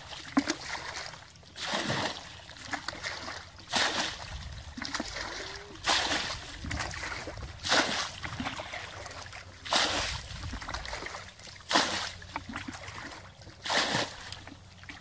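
Water splashing in a regular rhythm, one sharp splash about every two seconds, with softer sloshing between.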